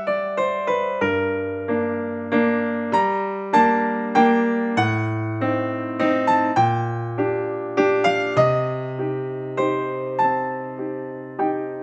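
Background piano music: a gentle melody of struck notes, each fading after it is played, over low bass notes that change every couple of seconds.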